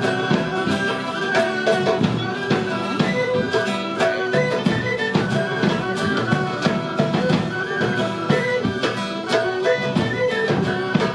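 Live traditional Basque dance music played by a small band, a lively melody over a steady beat, accompanying a line dance.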